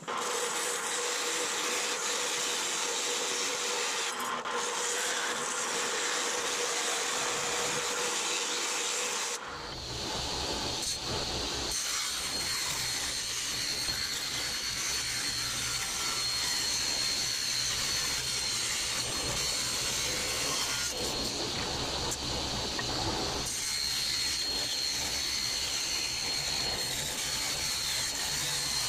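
Table saw running while a strip of aluminum hood panel is trimmed on it: a steady, loud cutting noise. About nine seconds in the sound gets fuller and deeper, and a high whine runs through it from then on.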